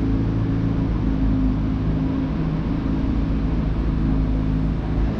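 Chevrolet C8 Corvette Z06's flat-plane-crank V8 running steadily at low revs as the car creeps forward at walking pace.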